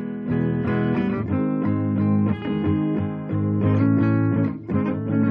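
Guitar played through a small transistor circuit: a ringing chord, then a run of strummed chords and picked notes with a short break near the end. The circuit here carries a BC337 transistor, which sounds a bit less loud than the 2N3904.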